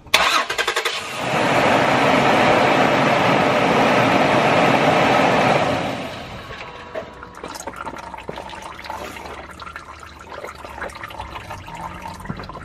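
Engine cranking over on the starter, then automatic transmission fluid gushing from the disconnected transmission line into a catch pan as a loud steady rush for about five seconds. About six seconds in, once the engine is shut off, the rush drops to a trickle with scattered drips.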